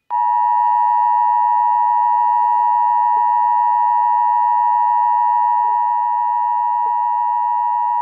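Emergency Alert System two-tone attention signal (853 Hz and 960 Hz sounded together): one steady, loud tone held for about eight seconds that cuts off sharply. It is the alert tone sent by an EAS encoder to announce the warning message that follows.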